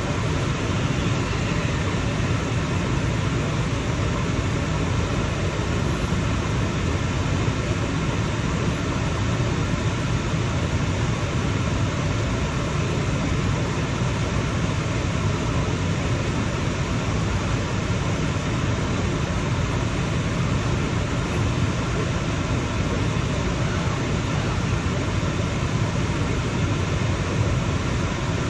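Steady, even rushing noise inside a car's cabin, the car's running and road noise, with no change in level throughout.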